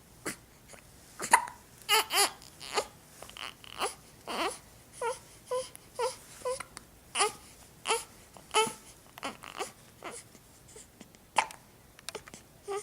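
Four-week-old baby hiccuping over and over, a short sharp hic roughly every half second to second, many with a brief squeak of voice.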